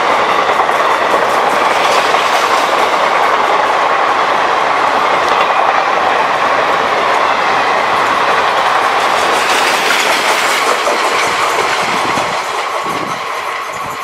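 Passenger coaches of a fast train rushing past close by: a loud, steady noise of steel wheels on the rails, dying down near the end.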